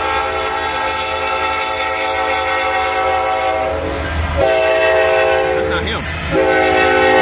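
Union Pacific freight locomotive's air horn sounding its warning for a grade crossing in long, steady blasts, with brief breaks about four and six seconds in.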